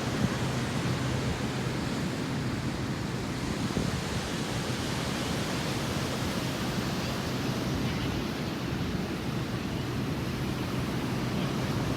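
Steady wash of ocean surf mixed with wind buffeting the microphone, under a faint low steady hum.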